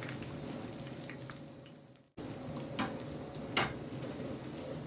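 Chicken 65 pieces deep-frying in hot oil, a steady sizzle with small crackles. The sound fades out and cuts off about two seconds in, then the sizzling resumes, with two short knocks in the second half.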